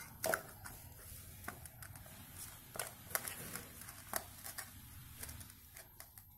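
Hands rubbing chilli powder and salt onto raw seer fish slices in a steel bowl: faint wet rubbing and squishing, with scattered light clicks of fingers and fish against the bowl.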